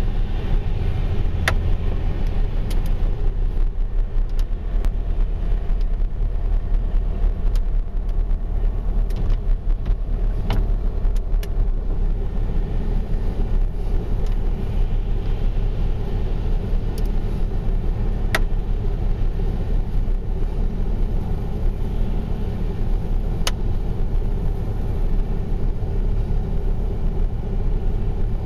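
Steady low rumble of a running motor vehicle, unchanging throughout, with a few faint, sharp clicks scattered through it.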